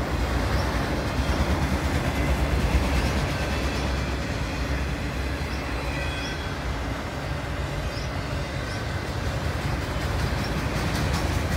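Freight train of enclosed autorack cars rolling past: a steady rumble of steel wheels on the rails.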